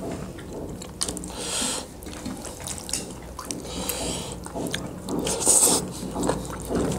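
People eating by hand: wet chewing and lip-smacking of millet dhido and liver-and-gizzard curry, with scattered small clicks and a few short hissy sucks.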